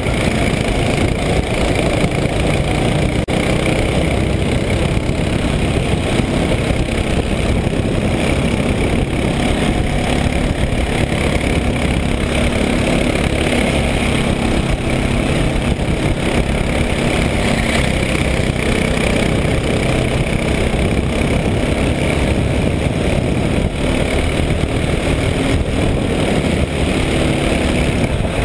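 Onboard sound of a racing kart at speed: its engine running hard and steadily under a heavy low rumble, with no big change in level.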